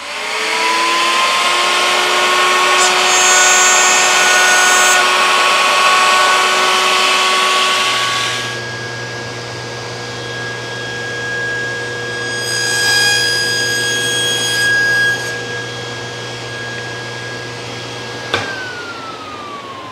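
A woodworking power tool spins up with a rising whine and runs through a groove cut in a small piece. From about eight seconds a table saw runs with a steady hum, cuts briefly a few seconds later, and near the end is switched off with a click, its pitch falling as the blade winds down.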